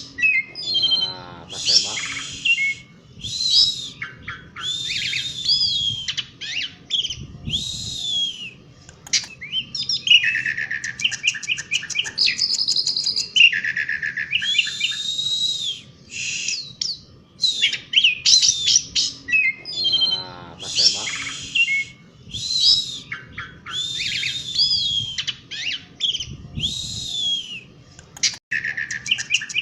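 Asian pied starling (jalak suren) singing a long, unbroken, varied song. Clear whistles glide up and down, mixed with harsh grating notes and fast rattling trills.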